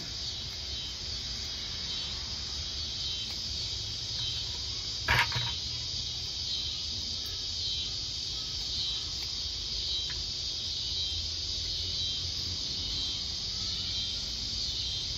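Garden pruning shears cutting a rose cane: one sharp snip about five seconds in, with a fainter click near the ten-second mark, over a steady high hiss.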